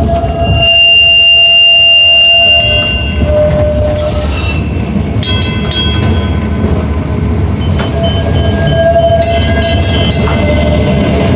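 PCC streetcar rolling on its rails with a steady rumble, its wheels squealing in high steady tones for the first few seconds and again later as it takes curved track. Runs of sharp clicks and rattles come about halfway and near the end.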